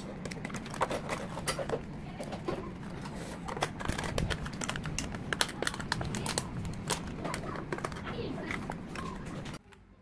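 Thin clear plastic lids clicking and crackling as they are handled and pressed onto plastic dessert cups: many irregular sharp clicks over a steady low hum, stopping abruptly near the end.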